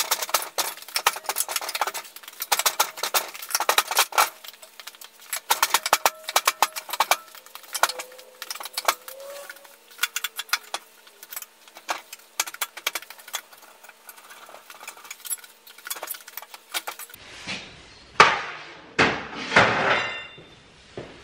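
Many quick metallic clinks, taps and clatters of hand tools and screws as metal covers are refitted to a lathe. About 17 seconds in the sound changes to a few heavier knocks and scrapes.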